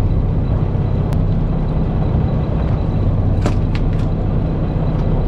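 Fishing boat's engine running steadily, a low even drone. A few faint ticks come in its second half.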